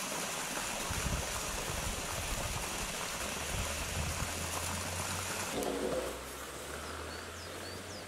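Steady running water, a stream-like trickle and splash, until about six seconds in, when it gives way to a quieter outdoor hush with a few faint bird chirps near the end.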